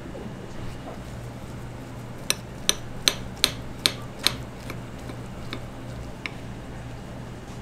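A run of about nine sharp knocks, two or three a second at first and then spacing out and fading, over a steady low hum.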